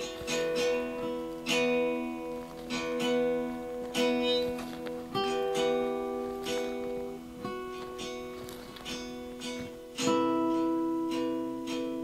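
Instrumental background music: an acoustic guitar picked note by note, each note ringing on.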